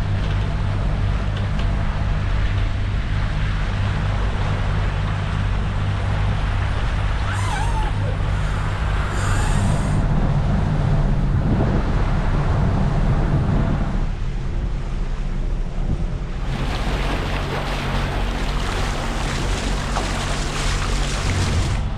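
Catamaran's inboard engine running steadily under way, with water rushing along the hulls and wind buffeting the microphone.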